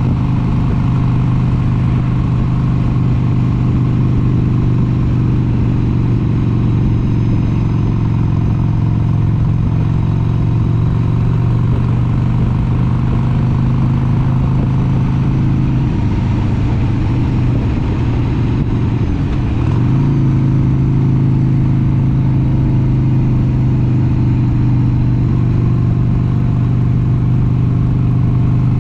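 1996 Harley-Davidson XLH883 Sportster's air-cooled 883 cc V-twin running at a steady road speed. Its pitch wavers for a few seconds past the middle, then steadies and gets a little louder.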